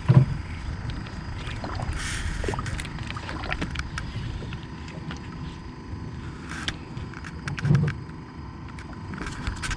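Boat under way on the water: a steady low rumble with scattered knocks and splashing, a little louder about two seconds in and again near eight seconds.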